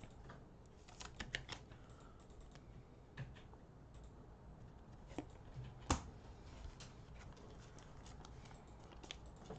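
Faint, scattered light clicks and taps, with one sharper click about six seconds in.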